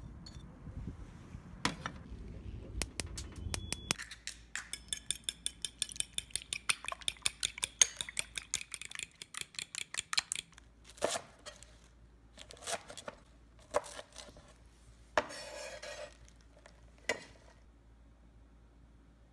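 A metal fork beating three eggs in a ceramic bowl: a fast run of sharp clinks, several a second, starting about four seconds in and lasting about six seconds. Before it come a few clinks of a china plate being set over a glass dish; after it, a handful of scattered knocks.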